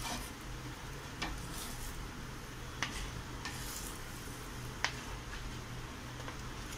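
Faint steady hiss with a low hum underneath, broken by a few soft, short clicks about a second, three seconds and five seconds in.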